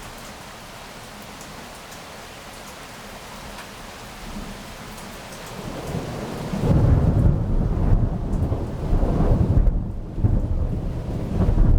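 Steady rain hiss, then about seven seconds in thunder arrives: a loud, long, low rumble that surges several times, dips briefly and swells again. It is the thunder of a lightning flash that the filmer takes for a positive strike.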